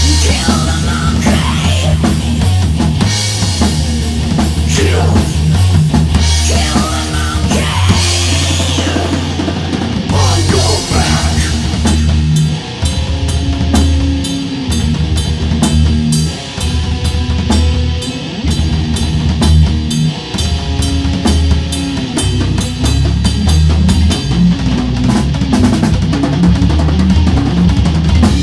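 Rock music with a prominent drum kit and bass, played loud and without a break.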